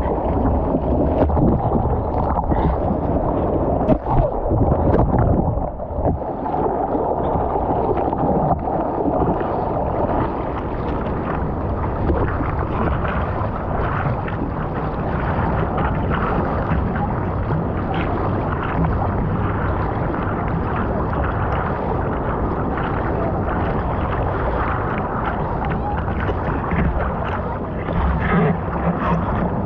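Ocean surf and rushing water close around the microphone: a steady, dull wash of breaking waves with scattered splashes.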